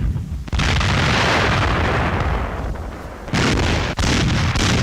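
Naval artillery shells bursting on impact in two loud blasts. One comes about half a second in and dies away slowly; the second comes a little past three seconds in, with a sharp crack just after it.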